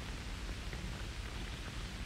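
Steady hiss and low hum of an old television soundtrack, with no distinct sound event.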